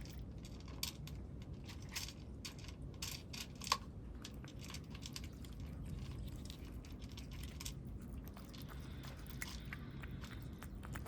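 Cats crunching and chewing food in quick, irregular bites, dense for most of the stretch and thinning out near the end, with one sharper click a little before four seconds.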